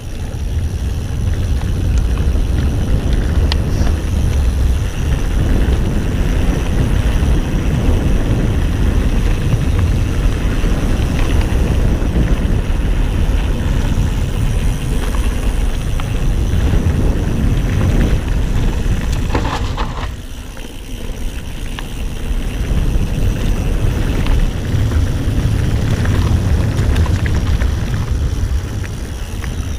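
Wind buffeting the action camera's microphone and tyre rumble as a Ghost Riot mountain bike is ridden at speed over a dirt trail, a steady low rumbling noise with rattles from the bike. It eases for a couple of seconds about two-thirds of the way through, then picks up again.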